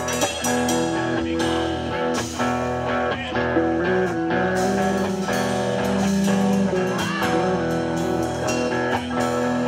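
Live rock band playing an instrumental intro: electric guitars with long held notes over bass guitar and drums.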